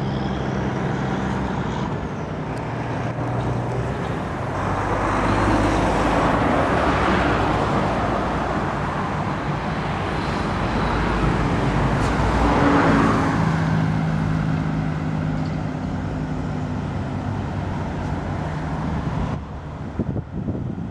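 Road traffic: cars and trucks passing on a multi-lane road, a steady tyre and engine rush with a low engine drone, swelling twice as vehicles go by.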